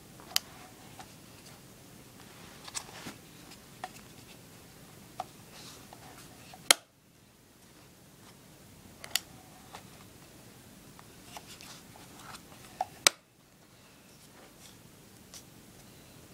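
Small clicks and taps of a Canon EOS 600D DSLR body being handled, its buttons pressed and its body knocked by fingers. There are scattered light clicks and two much louder sharp clicks, about seven and thirteen seconds in.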